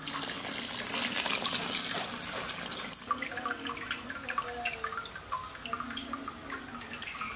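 Hot sparge water poured over the malt in a brew-in-a-bag mash bag, rinsing the grain, for about three seconds; then wort trickling and dripping through the bag into the kettle below.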